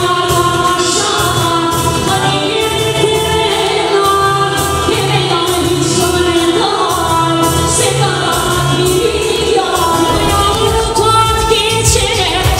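Music: a song with singing over a steady beat.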